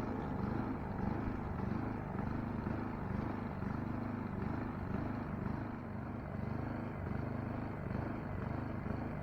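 Saito 304ST engine of a radio-controlled model plane running steadily in flight, its pitch wavering slightly up and down.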